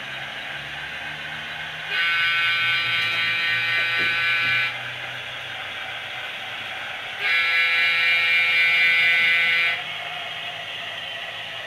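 Horn of a sound-equipped model diesel locomotive, played through its small onboard speaker: two long, steady blasts a few seconds apart, over a steady low hum.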